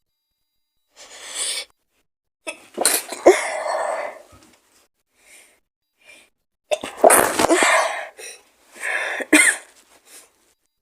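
A woman with a cold sneezing and coughing in three loud fits, each starting sharply, with quick breaths in between.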